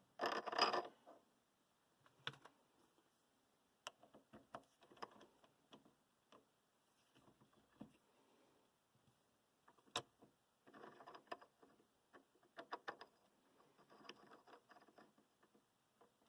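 Irregular small clicks, clinks and knocks of hard objects being handled, with a short louder clatter about half a second in and quick runs of clicks near the middle.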